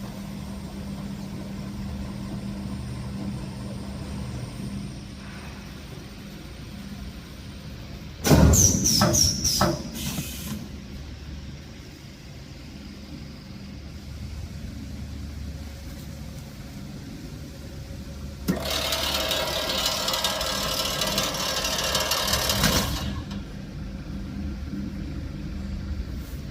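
Rice-packing machine running with a steady low motor hum. About eight seconds in comes a short cluster of sharp mechanical clacks and squeaks. Later there is a loud, even rushing hiss lasting about four seconds.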